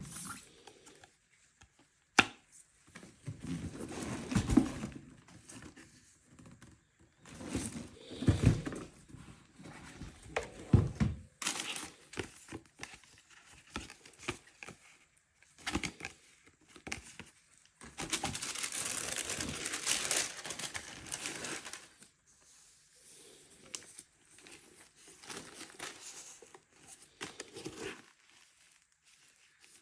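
Paper packaging crinkling and rustling in irregular bursts as a sneaker box is unpacked, with a sharp knock about two seconds in and a longer continuous crinkle of about four seconds past the middle.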